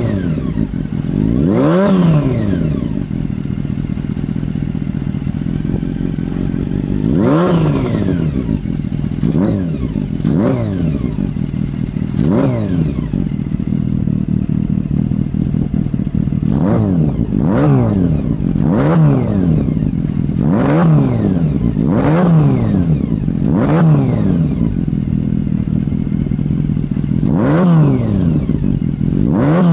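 Honda CB400 Four (NC36) inline-four breathing through a K-Factory 4-2-1 stainless header and IWASAWA stainless silencer: idling, blipped about a dozen times, each rev climbing quickly and falling straight back to idle.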